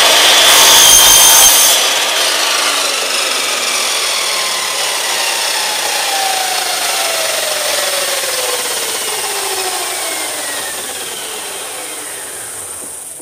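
Makita sliding drop saw (mitre saw) running at full speed and cutting through a timber board in about a second near the start. The motor and blade then spin down with a steadily falling whine for about ten seconds.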